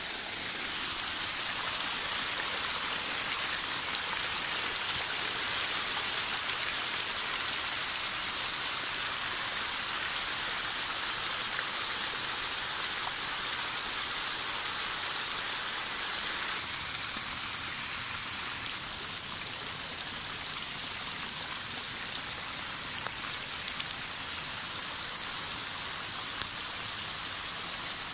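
Rainwater runoff rushing down a steep hillside footpath and a small rocky cascade, a steady hiss of flowing water mixed with heavy rain. The rush turns briefly brighter a little past halfway.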